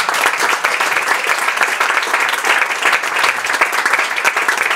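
A small audience applauding: many hands clapping steadily together.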